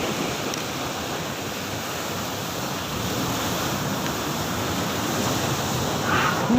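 Rough sea surf rushing steadily with wind buffeting the microphone. Near the end a short, higher-pitched sound rises above the surf.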